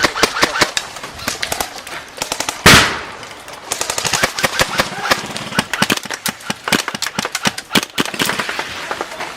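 Airsoft electric guns firing in rapid bursts of sharp clicks, with one louder bang about three seconds in.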